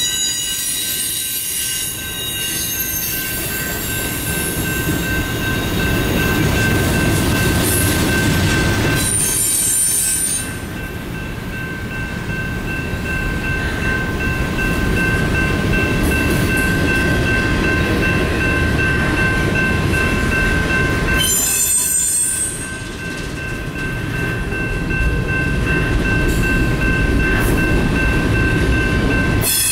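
Norfolk Southern double-stack container train rolling past close by: a steady rumble of wheels on the rails, with a sustained wheel squeal. The squeal turns shriller briefly about nine and about twenty-one seconds in.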